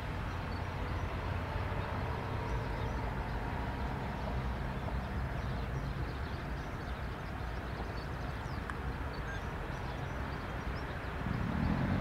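Dassault Falcon 900EX business jet taxiing, its three Honeywell TFE731 turbofans running at low power as a steady distant rumble with a faint whine. Near the end the engine sound rises in pitch and grows louder.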